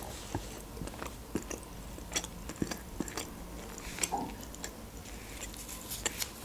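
Close-miked chewing and mouth sounds of a person eating soft white cheese, with scattered small clicks.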